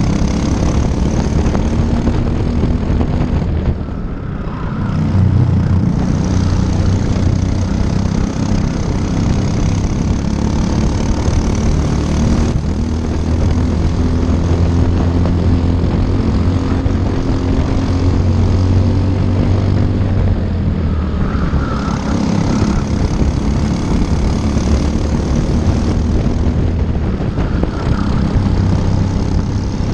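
Briggs & Stratton LO206 four-stroke single-cylinder kart engine running hard at racing speed, heard on board. It eases off briefly about four seconds in and then picks back up.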